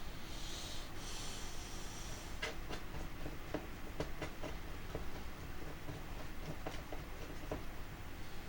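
A brief hiss, then a string of light, irregular clicks and taps from small plastic drivetrain parts being handled while grease is worked onto them.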